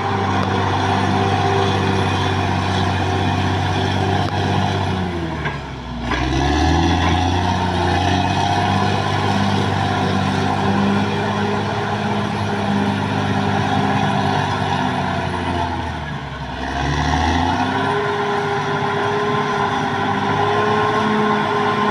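Caterpillar D6R XL bulldozer's diesel engine running steadily under work, with a thin high whine over it. Its pitch sags and picks back up twice, about five seconds in and again around sixteen seconds.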